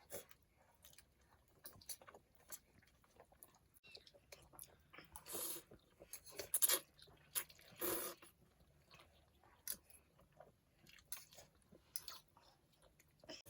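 Faint eating sounds: chewing and crunching, with scattered small clicks and a few short louder bursts of noise.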